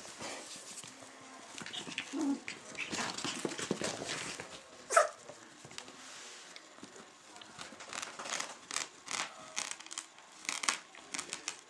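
A Chinese crested puppy playing with a long toy on carpet: scuffling and scattered clicks, with one short rising squeal about halfway through and a run of sharp quick clicks near the end.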